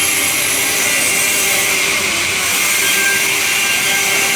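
Sawmill saw machinery running, a loud, steady noise with a strong high hiss and faint steady whining tones.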